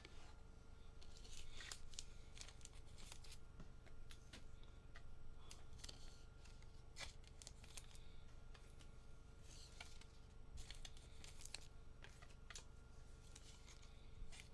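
Faint scattered clicks and rustles of trading cards and their packaging being handled, over a low steady hum.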